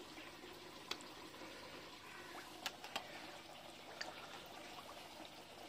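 Koi carp feeding at the pond surface: a few sharp slurping pops as they suck down floating food pellets, over a steady sound of running water.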